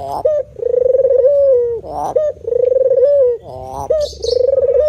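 Spotted dove (tekukur) cooing: a repeated phrase of short notes and long steady coos that dip in pitch at the end, about three long coos in a row.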